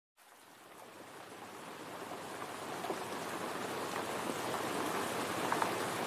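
Steady rain falling, fading in from silence and growing louder.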